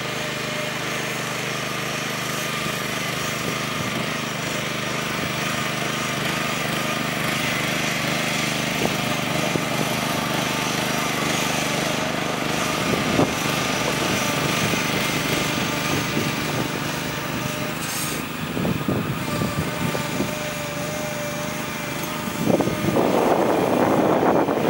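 Small gasoline engine of a walk-behind motorized shed mover running steadily as it drives a shed across grass. A few light knocks come partway through, and wind buffets the microphone near the end.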